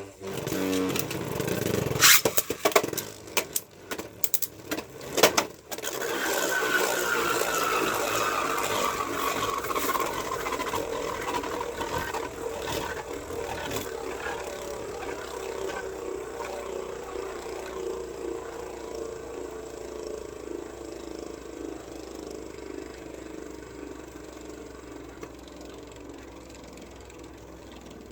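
Two Beyblade Burst tops, Jet Wyvern and Super Hyperion, launched into a plastic stadium. Sharp clacks of them colliding fill the first few seconds. Then they whir steadily as they spin and scrape the stadium floor, the whir slowly dropping in pitch and fading as they lose spin.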